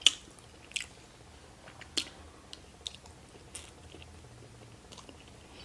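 A person chewing food, with a handful of sharp mouth clicks spaced about a second apart.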